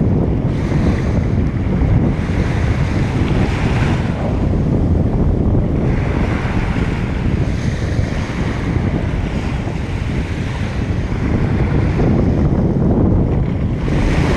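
Surf washing onto a beach, the hiss of the waves swelling and fading several times, with heavy wind buffeting the microphone.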